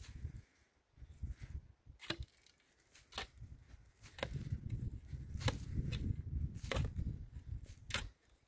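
Repeated sharp knocks, about six strikes a little over a second apart, as from a tool striking in steady work. A low rumble runs under the later strikes.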